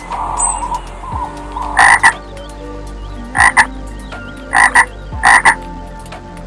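A frog croaking: four loud calls, each a quick double croak, spaced about a second apart.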